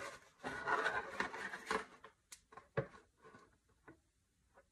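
Soldering iron tip scraping along the seam of a 3D-printed PLA+ helmet as the two halves are melted together: an irregular scratchy rasp for about two seconds, then a few light scrapes and ticks.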